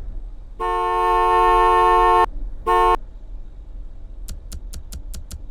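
Car horn honking: one long honk of about a second and a half, then a short toot. Near the end, a quick run of faint ticks, about four a second.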